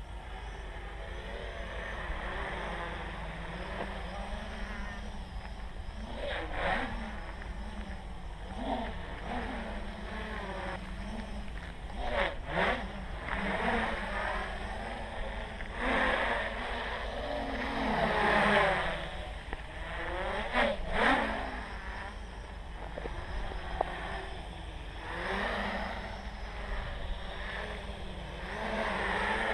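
Armattan CNC 355 quadcopter's motors and propellers buzzing, the pitch rising and falling with throttle changes during flips and rolls. There are louder surges of throttle, the strongest about two thirds of the way in.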